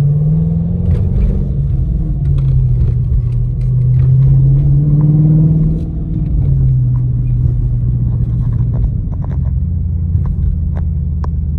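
Dodge Charger R/T's 5.7-litre Hemi V8 running at low speed, its pitch wavering up and down, then dropping and settling to a lower steady note about nine seconds in. A few light clicks near the end.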